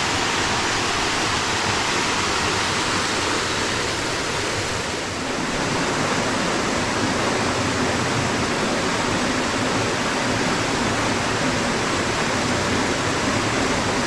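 Waterfall rushing steadily: a loud, even hiss of falling water.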